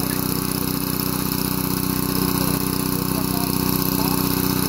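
Small gasoline engine of a hydraulic rescue-tool power unit running steadily.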